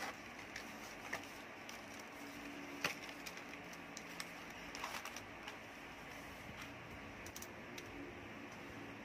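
Cardboard shipping box being handled and pulled open by hand: faint rustling and scraping of cardboard with scattered sharp clicks and crackles over a steady hiss, the sharpest click about three seconds in.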